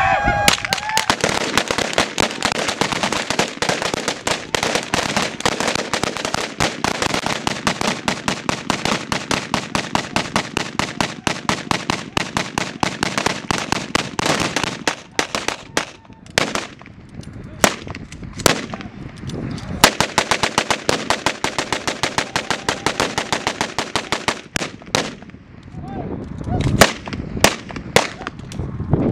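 A group of rifles fired into the air as a gun salute: a dense, continuous run of rapid, overlapping shots for about fifteen seconds, then thinning to scattered single shots.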